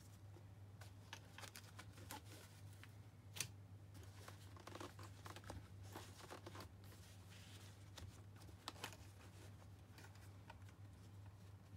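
Faint rustling and light clicks of a hand handling a fabric cosmetic case and its plastic-capped makeup brushes, over a steady low hum. The sharpest click comes about three and a half seconds in.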